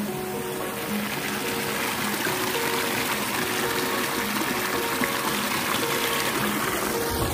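Background music with held notes over the steady rush of a shallow stream running over stones, the water loudest midway through.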